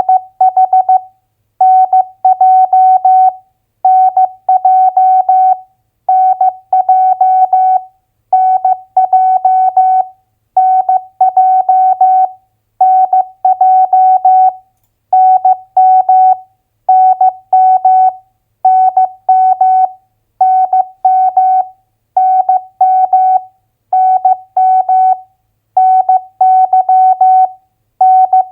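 Morse code (CW) practice tone: a single steady tone keyed on and off in dots and dashes at 15 words per minute, sending US state abbreviations as two-letter groups, about one group every two seconds with short pauses between.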